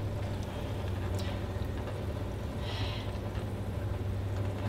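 Peanut oil poured from a plastic bottle into a cast iron skillet: a faint trickle, with one brief louder moment a little under three seconds in. A steady low hum runs underneath.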